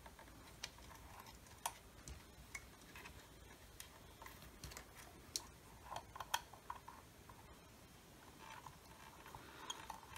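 Faint, scattered light clicks and taps as a soldering iron and wires are worked against a speaker's solder tabs, over quiet room tone.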